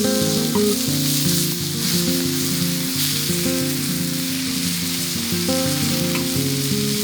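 Food sizzling as it fries in a pan, a steady hiss throughout, under background music with a melody and bass line.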